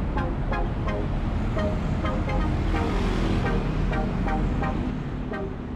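City road traffic: cars and vans driving past with a steady road noise, and short horn toots now and then.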